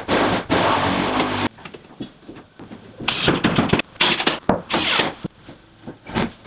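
A power tool's motor running steadily, stopping about a second and a half in, followed by irregular scraping and knocking of hand work on building materials.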